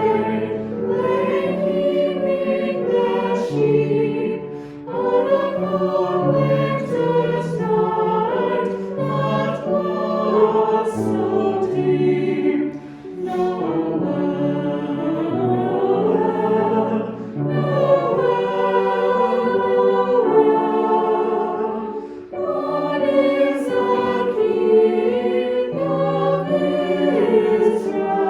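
Choir singing a hymn, phrase by phrase, with short breaths between phrases about every four seconds.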